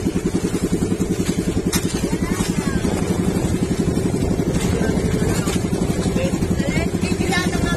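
Engine of a motorized outrigger boat running steadily under way, a loud, rapid, even pulsing drone.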